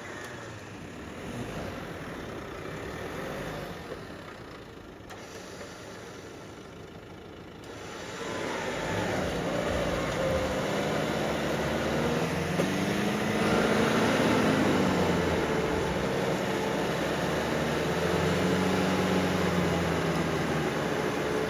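Vehicle engine running while driving over rough ground, its revs rising and falling. It gets louder about eight seconds in.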